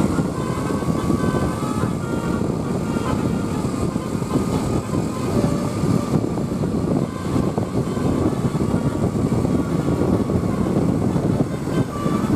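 Steady engine and road noise from a bus on the road, with no horn sounding.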